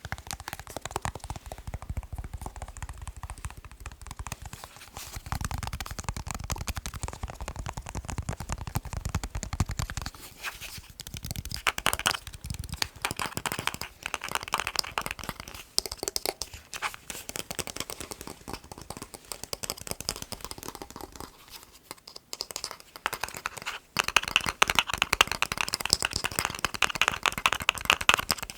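Fast tapping on a TV remote control: a dense run of rapid small clicks. A low rumble sits under the tapping for roughly the first third, and the tapping grows louder and brighter near the end.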